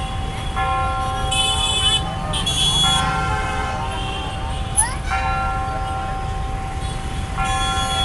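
Clock tower bell striking the hour, about three strikes, each note ringing on until the next, over city traffic with occasional horns.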